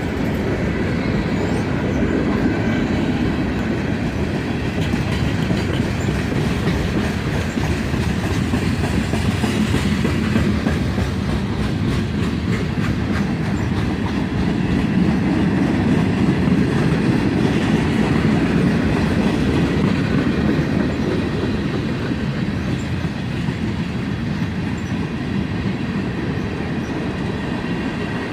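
Freight cars of a CSX manifest train rolling past: a steady rumble of steel wheels on rail, with faint clicks over the rail joints.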